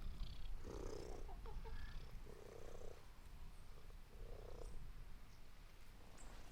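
A cat purring softly, in three slow swells a couple of seconds apart.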